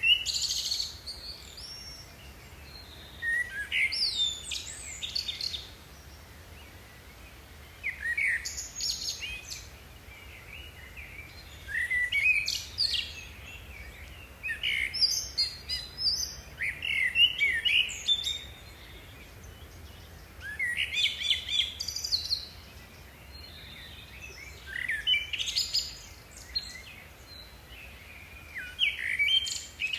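A songbird singing, repeating short phrases of quick chirps and sweeping notes every few seconds.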